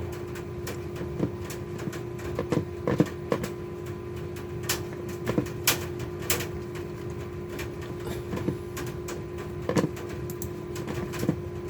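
Computer mouse and keyboard clicking irregularly while the computer is operated, over a steady hum.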